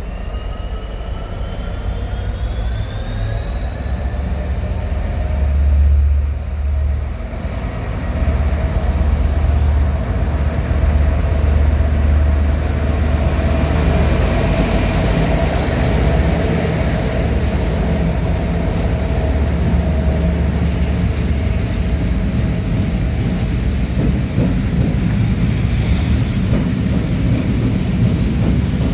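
A train passing through a station without stopping, with a steady rumble of wheels on rail throughout. A rising whine is heard over the first few seconds, then holds steady.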